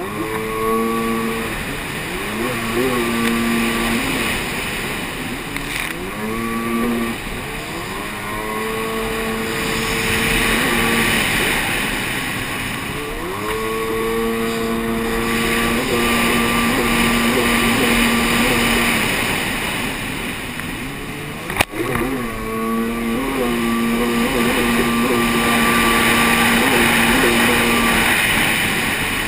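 Jet ski engine running hard, its pitch climbing and holding high, falling off and climbing again again and again as the throttle is worked, over water rushing and spraying past the hull. A single sharp knock about three-quarters of the way through.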